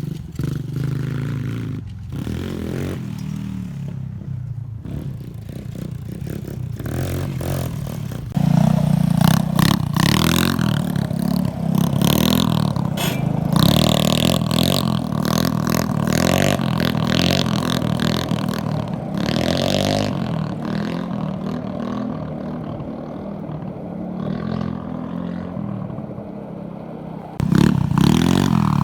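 Small scooter engines running and revving, with clattering and scraping throughout. The sound steps up abruptly in loudness about eight seconds in and again near the end.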